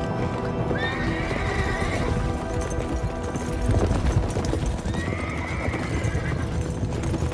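Several horses galloping, hooves pounding on a dirt track, with two long whinnies, one about a second in and another about five seconds in, over film music.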